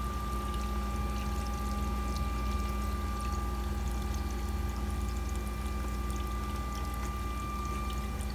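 Screw press dewatering machine running steadily while it squeezes potato peel residue. A low motor hum carries a few steady whine tones, with a continuous haze of sound over it and light scattered ticks; the liquid pressed out through the screen is likely draining away.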